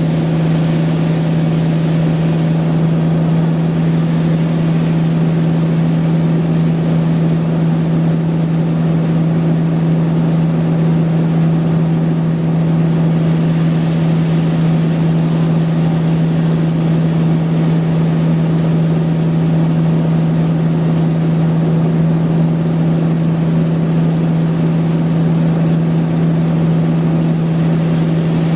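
Sawmill machinery running with a steady, unchanging low hum.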